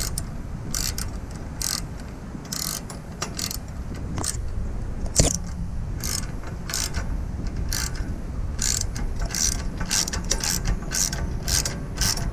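Socket ratchet wrench clicking in quick runs as its handle is swung back and forth, driving a bolt into the surrey bike's frame. One sharper click stands out about five seconds in.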